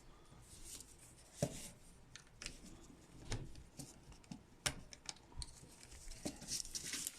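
Faint handling noises from a plastic action figure and its small parts: scattered light clicks, taps and rustles as the pieces are picked up and fitted.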